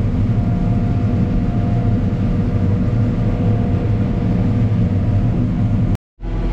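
Heavy farm machinery running steadily: a dense low engine hum with a faint steady whine above it. It cuts out abruptly for a moment near the end, then carries on.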